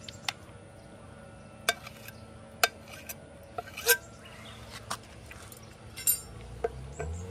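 Irregular sharp clinks of a cat food dish as stray cats eat dry food from it, about seven in a few seconds.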